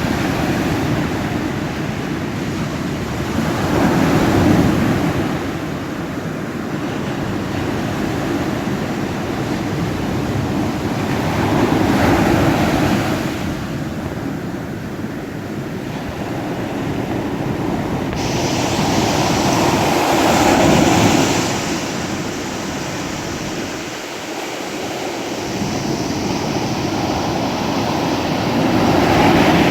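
Ocean waves breaking and washing in on a shore, in slow swells about every eight seconds: four surges that each build and fade over several seconds.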